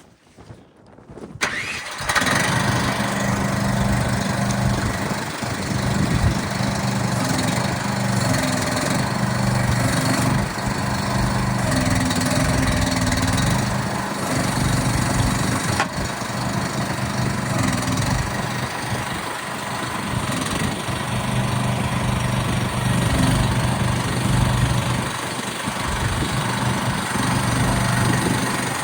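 The 420 cc single-cylinder gasoline engine of a CFG Industrial MX15R mini excavator coming up in its first couple of seconds, then running steadily, its engine note stepping up and down at times.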